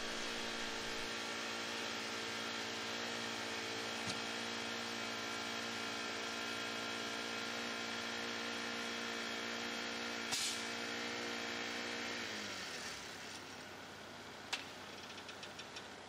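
Small gas engine of a ScreeDemon power screed running steadily at idle, then winding down and stopping about 12 seconds in; a sharp click follows a couple of seconds later.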